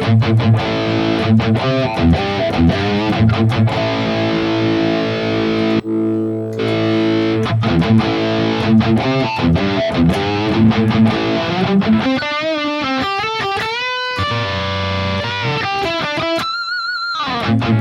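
Distorted electric guitar played through a Tube Screamer-type overdrive into an amp model: chugging held chords with short stops and a brief break about six seconds in, then single-note lead lines with wide vibrato and a sliding note near the end.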